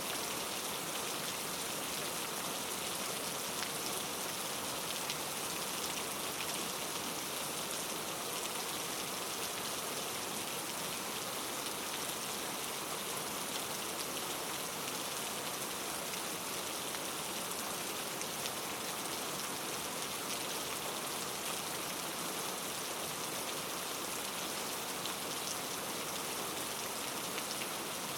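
Steady rain falling and pattering on a surface, an even hiss with faint scattered drop ticks.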